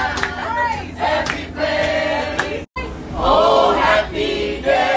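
A group of bus passengers singing and shouting together, many voices at once, with a momentary dropout a little past halfway.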